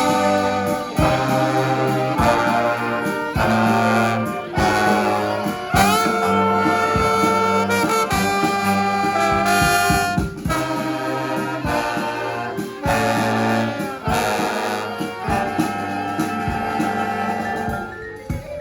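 A brass band playing live: trumpets, trombones and saxophones in short, punchy repeated riffs over a low brass bass line and drums. The music stops just before the end.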